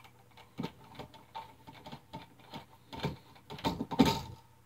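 Hand screwdriver turning a screw on a wall receptacle being fastened into its electrical box: a run of irregular light clicks and scrapes, several a second, the loudest about four seconds in.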